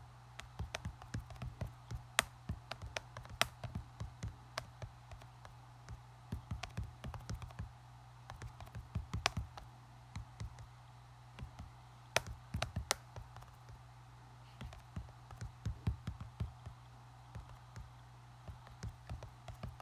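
Typing on an iPad's on-screen keyboard: quick irregular runs of light taps with short pauses between words, over a faint steady low hum.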